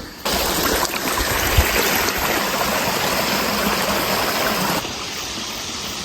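Fast-flowing storm runoff, rainwater coming down off the mountain, making a steady rush of water. It gets a little quieter about five seconds in.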